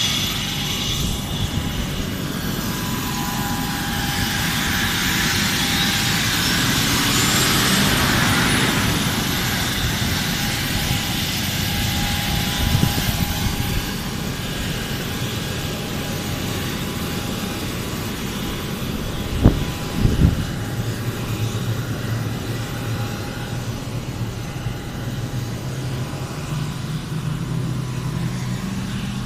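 Fixed-wing aircraft's engine noise from a plane climbing away after takeoff, a broad rush that swells about four to nine seconds in and then slowly fades. Two sharp knocks come about twenty seconds in, and a low steady hum runs under the later part.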